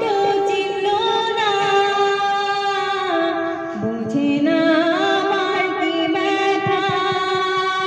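A woman singing a song into a handheld microphone. She holds long notes that step up and down in pitch.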